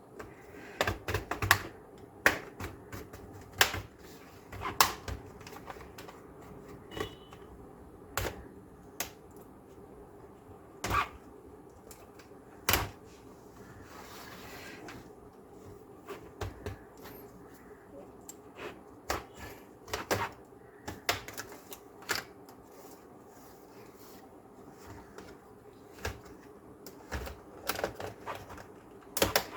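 Irregular sharp clicks of a laptop's plastic case clips snapping loose as a guitar pick is slid along the seam, with a short scrape of the pick about halfway through.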